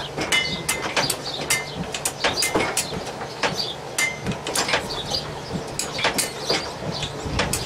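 A blacksmith's hammer striking iron on an anvil in quick, uneven blows, about three a second, some leaving a short metallic ring.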